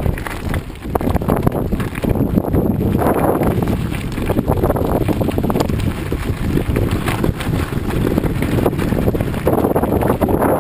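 Bicycle riding over a loose gravel road: wind buffeting the microphone and a steady crunch and rattle of tyres and frame over the stones.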